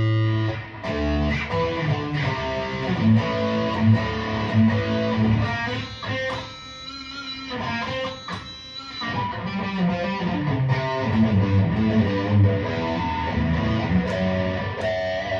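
Aria Pro II RS Wildcat electric guitar played through distortion on its bridge pickup: picked single-note riffs and runs of changing notes, easing to a quieter passage for a few seconds midway.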